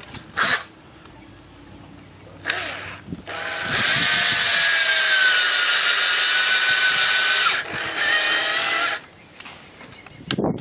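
Cordless drill driving a self-tapping screw through a plastic horseshoe into a horse's hoof. There are two short bursts, then a steady whine under load of about five seconds that dips briefly and runs on another second before stopping.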